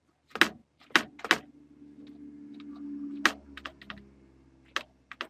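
Typing on a computer keyboard: a handful of separate, unevenly spaced keystrokes as a name is typed in.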